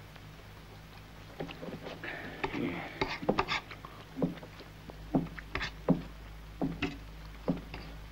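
A man eating beans and bread greedily: a spoon clinks and scrapes on a plate, with chewing. The clicks come irregularly, starting about a second and a half in.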